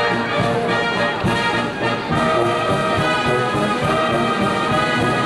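A brass and wind band with tuba plays a tune, held brass chords over a steady beat.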